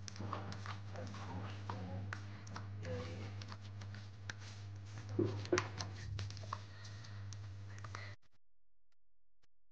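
Thick yogurt-and-spice marinade being mixed by hand in a stainless steel bowl: irregular wet scrapes and clicks against the metal over a steady low hum. The sound cuts off abruptly near the end.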